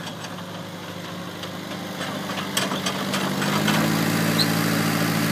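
1948 Massey-Harris Pony tractor's small four-cylinder engine running at low speed, growing louder as the tractor comes up close, with scattered light clicks over the engine.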